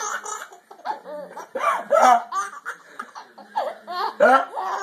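A small child laughing in repeated short bursts, each one a high pitch that rises and falls.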